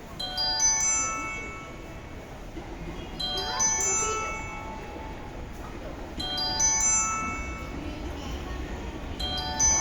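Railway station platform approach chime: a short climbing run of bell-like tones that repeats about every three seconds, signalling that a train is about to arrive.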